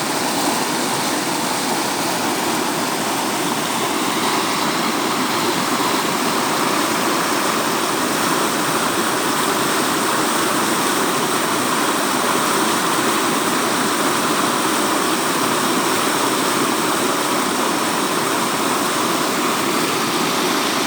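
Floodwater after rain, rushing steadily and evenly.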